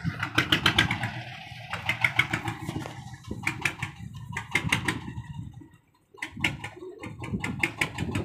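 Small wooden boat's engine running with a rapid, even knocking beat of about eight exhaust pulses a second over a low rumble. The beat comes and goes in runs and drops out briefly about six seconds in.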